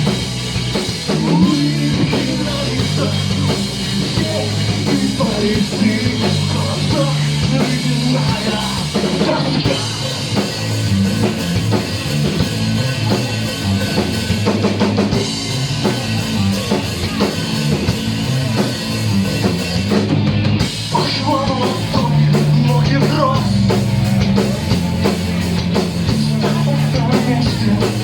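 Rock band playing loud, heavy music: drum kit and a stepping bass line under dense guitars.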